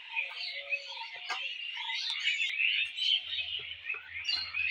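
Many birds chirping and twittering at once, a continuous chorus of short high calls.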